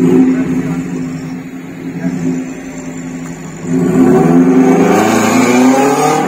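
Off-road 4x4's engine running steadily under load in deep mud, then revving up hard about four seconds in, its pitch climbing.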